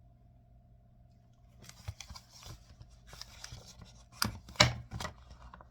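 Paper rustling with sharp clicks and taps as a picture book's page is handled and turned. It starts about a second and a half in, with the loudest clicks near the end.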